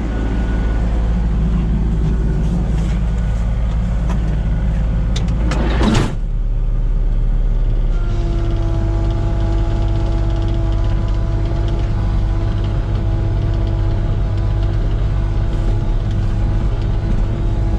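Komatsu PC16 mini excavator's diesel engine running steadily under load, with a brief loud rushing sweep about six seconds in. From about eight seconds a steady whining tone runs alongside the engine.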